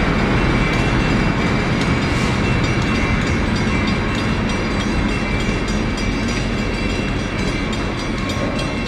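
Train running on the rails out of view: a steady, loud rumble of wheels on track with light clicking, easing slightly towards the end.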